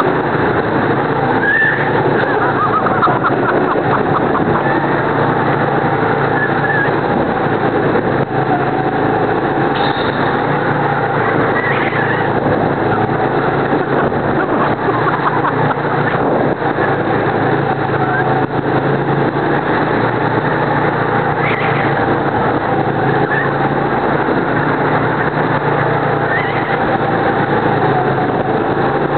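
Go-kart engine running steadily at speed, heard close up from the kart itself: a loud, even drone with little change in pitch.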